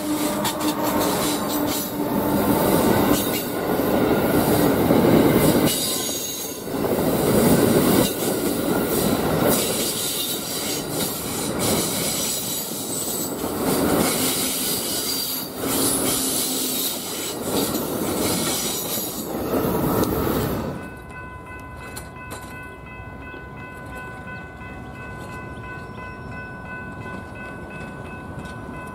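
Passenger train cars passing close at speed: loud wheel-on-rail noise that surges and eases as each car's trucks go by. About two-thirds of the way through it cuts off suddenly to a much quieter steady rumble with faint steady tones.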